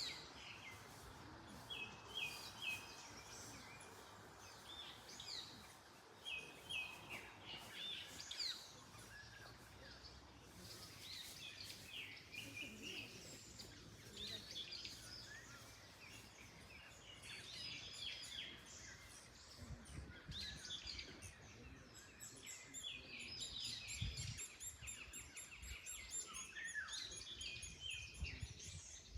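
Several wild birds singing and calling in early summer, a dense mix of short chirps and whistled phrases, one bird repeating the same brief three-note phrase several times, over a faint background hiss.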